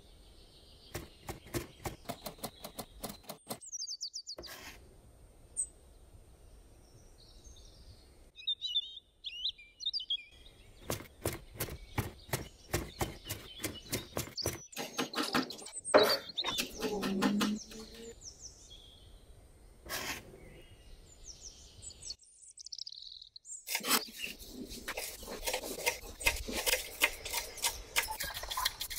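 A chef's knife chopping green chilies and fresh herbs on a wooden cutting board, in quick runs of knife strikes broken by short pauses. Birds chirp in the background.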